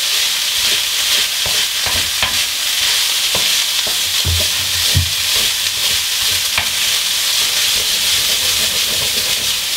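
Cold cooked long-grain rice sizzling in oil in a hot electric wok while it is stirred and scraped with a wooden spatula. A steady hiss runs under scattered knocks of the spatula against the pan.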